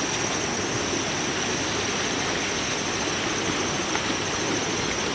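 Steady rushing of flowing water, with a thin steady high-pitched tone above it.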